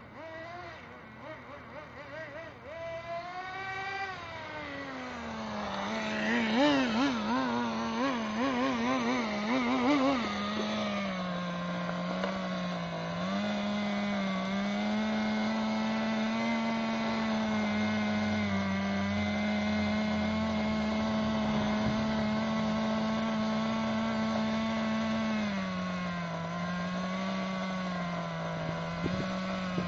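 Small two-stroke nitro glow engine of an HPI radio-controlled car running. Its pitch rises and falls at first, then wavers rapidly. From about ten seconds in it holds a steady high buzz, dipping slightly twice.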